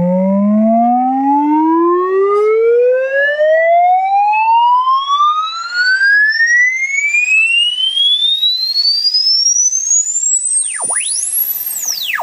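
Sine-wave test tone sweeping steadily upward in pitch, from a low hum to a very high whistle, played loudly through a Sharp GF-575 boombox's speakers, with fainter overtones rising alongside it. Near the end, faint ghost tones dive down and swing back up.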